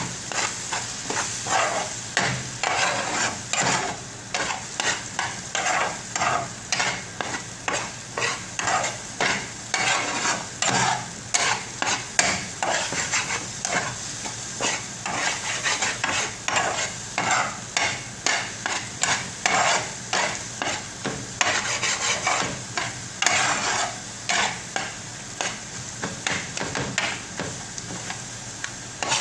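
A spatula stirring and scraping egg bhurji (scrambled eggs in onion-tomato masala) around a hot pan in quick, repeated strokes, over the steady sizzle of frying.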